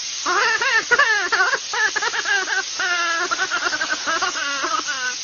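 An animal whining, with many wavering calls in quick succession rising and falling in pitch, over a steady hiss of blowing air.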